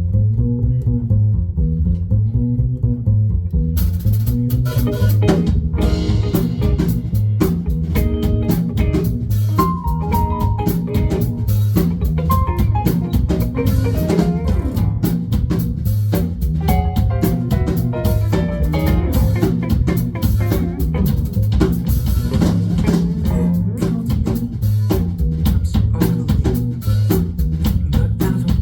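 Live funk band jam: an electric bass riff plays alone, then drums and guitar come in about four seconds in and the full band grooves on with a steady beat.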